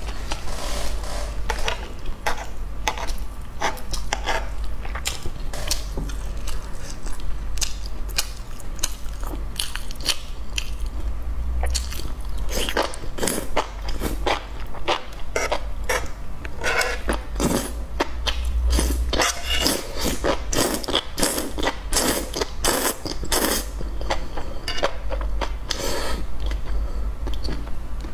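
A person chewing and slurping sauced enoki mushrooms: a steady run of wet clicks and smacks from the mouth, coming thicker in the second half.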